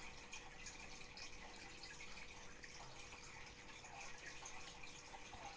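Quiet room with a faint steady hum and faint, scattered soft rustles of a cotton pad being dabbed and wiped on facial skin.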